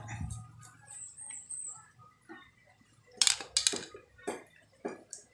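Sharp clicks and knocks of small hard parts being pulled and handled, in a cluster about three seconds in and a few single ones after, as the inner parts are taken out of a cracked plastic spin-dryer gearbox.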